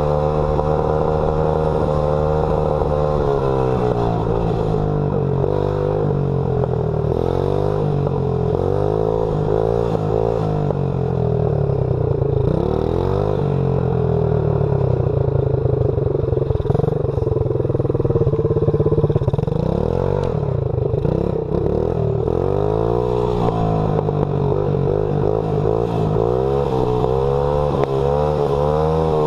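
Small dirt bike engine running under way, its pitch rising and falling repeatedly as the throttle is opened and closed, with a couple of deeper drops where it slows.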